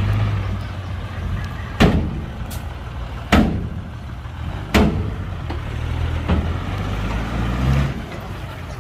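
Heavy diesel earthmoving machinery running with a steady low rumble, broken by three loud bangs about a second and a half apart and a fainter fourth one a little later.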